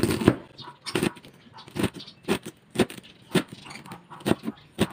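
Kitchen knife chopping leafy greens on a cutting board: a steady series of sharp taps as the blade strikes the board, about two a second.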